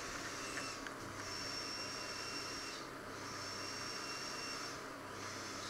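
A person breathing through the nose close to the microphone, each breath a hiss of about two seconds, with a thin high whistle in two of them. A low steady hum runs underneath.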